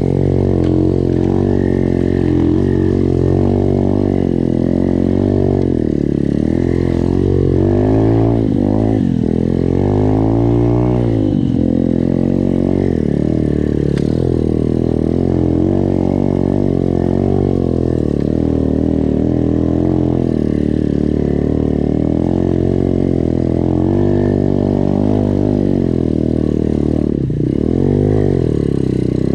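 SSR 125 pit bike's single-cylinder four-stroke engine running under load while being ridden, the throttle opening and closing so the revs rise and fall. Sharper bursts of revving come about eight to eleven seconds in and again near the end.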